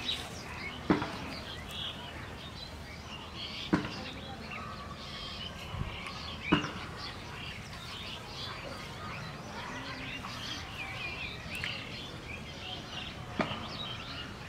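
Small birds chirping and calling continually, with four sharp clicks spread through the stretch.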